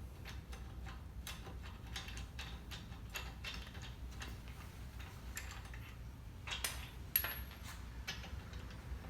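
Irregular metal clicks and clinks of a lug wrench working lug nuts off a car wheel, with a louder cluster of clicks near the end.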